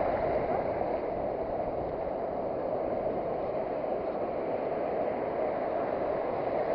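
Steady rushing of surf breaking and washing on a sandy beach, an even noise with no distinct strokes.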